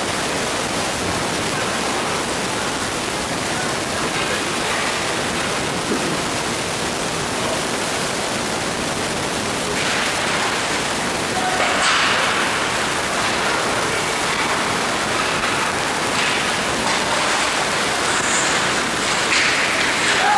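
Ice hockey rink ambience: a steady wash of noise, growing louder and brighter about ten seconds in as play restarts at a faceoff.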